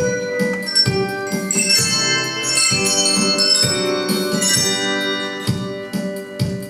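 Handbells played as a group, ringing out a tune: struck notes follow one another several times a second and overlap as they ring on.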